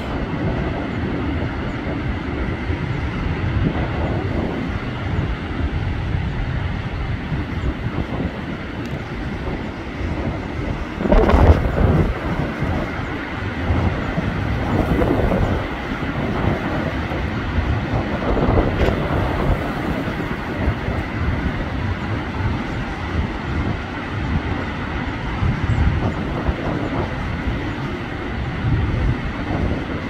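Low, steady roar of a rough, stormy sea, with wind on the microphone, swelling several times as big waves break. The loudest surge comes about eleven seconds in.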